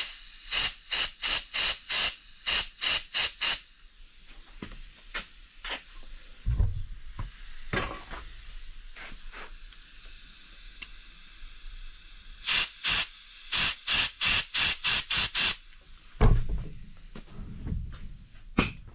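Compressed-air blow gun fired in quick short bursts, about three a second, blowing through the sealant injection channel of a BMW N55 engine's bedplate to check that air comes out past the crankshaft seals. Two runs of bursts, one at the start and one about twelve seconds in, with a couple of dull knocks in between.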